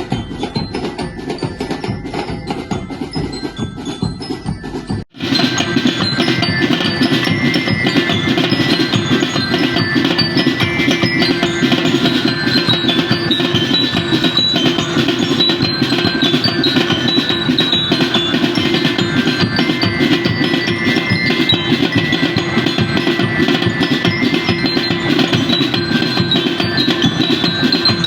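Music with bell-like mallet percussion and wood-block knocks; about five seconds in it breaks off abruptly and a louder, fuller passage takes over.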